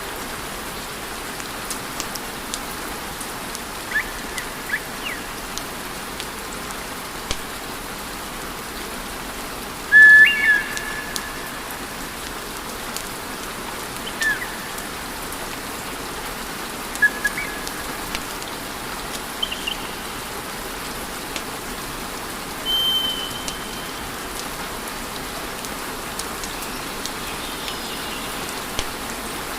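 Wood fire crackling and hissing steadily, with scattered pops and several short high whistles from the burning wood, the loudest about ten seconds in.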